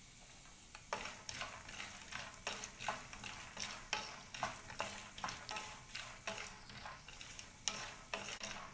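Wooden spatula stirring peanuts, almonds, roasted gram and cashews as they fry in a little oil in a pan. The scraping strokes start about a second in and come about twice a second.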